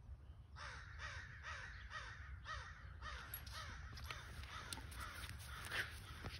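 An animal giving a rapid series of harsh calls, about three a second, each falling in pitch, with sharp clicks joining them in the second half.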